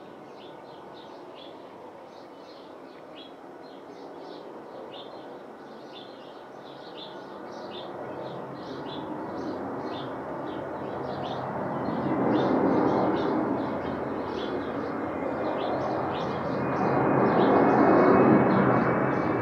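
Airbus A330-200's Pratt & Whitney PW4168A turbofans on approach: a jet rumble that grows steadily louder as the airliner comes in low overhead, with a thin high whine slowly rising in pitch in the second half. Small birds chirp over it.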